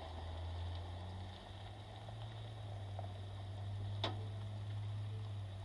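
Low, steady engine hum of a pickup truck running at low speed, rising slightly in pitch about a second and a half in. A single sharp click about four seconds in.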